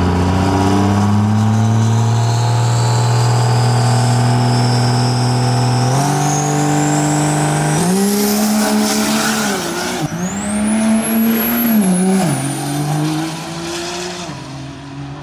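Diesel drag-racing pickup held at high revs, its engine note steady under a turbo whistle that climbs in pitch, then pulling hard down the strip: the engine pitch drops and climbs again through several gear changes while a second turbo whistle sweeps up. The engine fades into the distance near the end.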